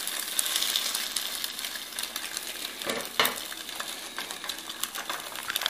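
Eggs frying in margarine in a nonstick pan, a steady crackling sizzle, with a spatula moving in the pan and a brief louder scrape about three seconds in.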